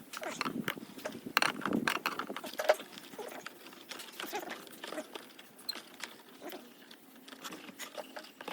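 Irregular clicks and light knocks, denser and louder in the first three seconds, with a few short pitched sounds among them.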